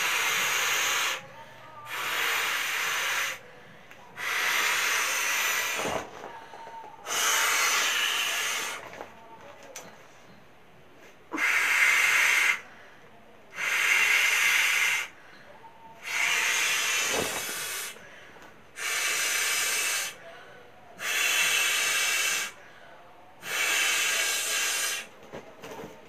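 Breath blown by mouth into the valve of a plastic beach ball: about ten long puffs of rushing air, each lasting a second or so, with short pauses for breath between them.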